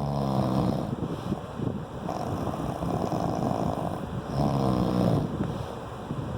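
A sleeping person snoring: two pitched, buzzing snores about four and a half seconds apart, with a breathier, hissing breath between them.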